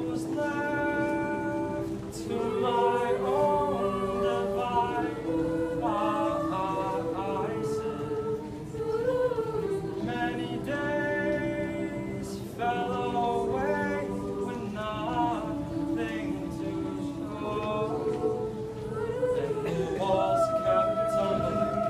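Mixed-voice choir singing a cappella: steady held chords in the lower voices with a higher melody line moving and changing pitch above them.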